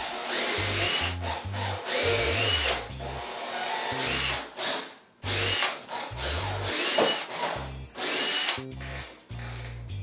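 Cordless drill boring small pilot holes for hinge screws into a wooden cabinet door frame. It runs in about five short bursts, the motor whine rising as each one starts.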